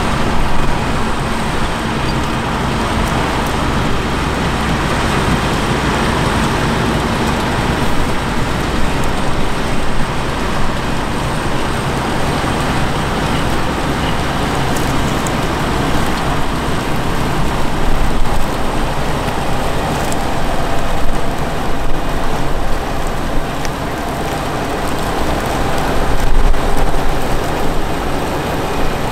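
Fendt 724 Vario tractor's diesel engine running steadily as it pulls a Grimme SE 150-60 potato harvester through the rows while lifting potatoes, the engine and the harvester's machinery blending into one continuous mechanical noise.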